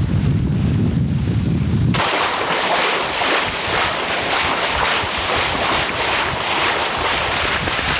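Wind buffeting the microphone aboard a sailboat, then about two seconds in an abrupt change to a steady rushing hiss of wind and water.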